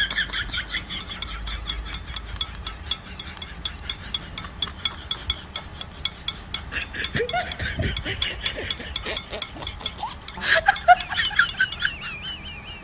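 A mechanism clicking rapidly and evenly, about four to five clicks a second, like a ratchet, with squeaky wavering tones over it at times.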